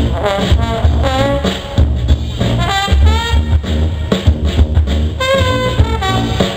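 A live jazz band plays: tuba, trombone and other horns trade sliding, bending phrases over a drum kit keeping a steady beat.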